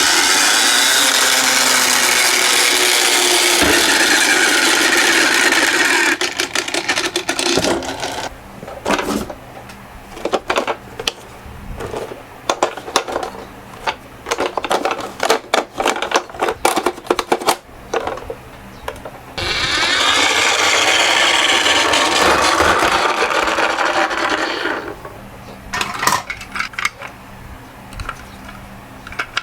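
Toy minicars rolling down a slope with a steady rolling rattle for about six seconds, then many irregular small clicks and clatters of the little cars knocking. A second long roll starts past the middle and gives way to clicks again near the end.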